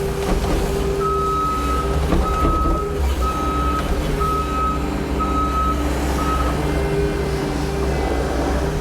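Skid steer's reversing alarm beeping six times, about once a second, then stopping as the machine stops reversing, over the steady drone of its diesel engine.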